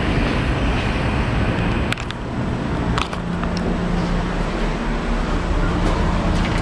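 Steady, loud outdoor background rumble, with two sharp clicks about two and three seconds in.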